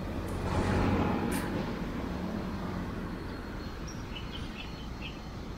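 Street traffic noise as a car passes close by, its tyre and engine noise swelling about a second in and then fading into a steady road hum. A few faint short high chirps come near the end.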